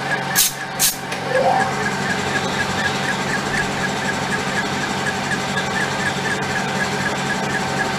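Metal lathe running with an end mill in the chuck, milling steel on a light finishing pass: a steady machine hum with a fast regular ticking from the cutter. Near the start come two short hisses about half a second apart.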